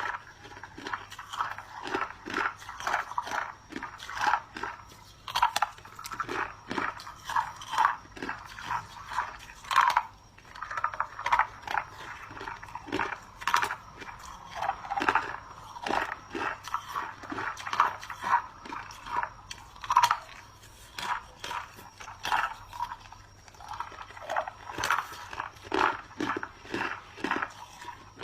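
A person biting and chewing chunks of clear ice: a steady run of crisp crunches, two or three a second, with a few louder sharp cracks about ten and twenty seconds in.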